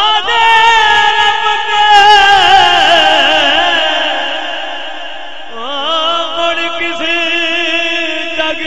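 A man singing Punjabi Sufi kalam into a microphone holds one long, wavering high note for about five seconds. Then he starts a new phrase that slides down at its ends.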